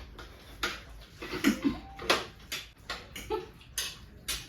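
Several people eating ramen noodles: irregular short slurps and clicks of utensils against bowls, about one or two a second, with a brief vocal noise or two.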